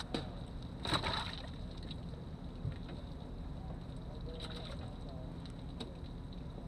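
A brief splash about a second in as a bass is handled out of the boat's livewell during the fish count, over a steady low hum, with faint handling clicks later on.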